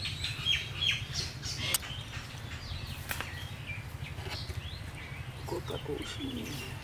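Outdoor ambience: birds chirping over a steady low rumble, with a few sharp clicks.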